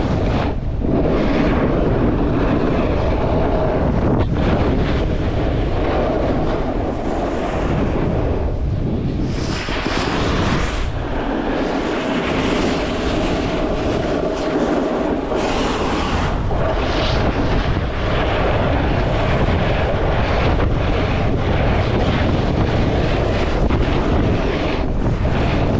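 Wind buffeting a camera microphone: a loud, steady rumble with several brief hissing surges.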